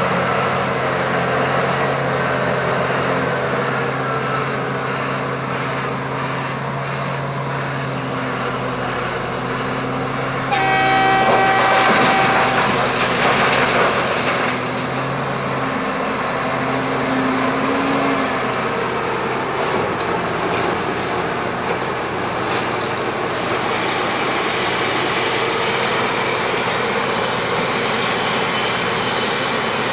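Heavy diesel engine of a Komatsu PC1250 excavator running steadily. About ten seconds in, a horn sounds for about a second and a half within a louder stretch of machine noise.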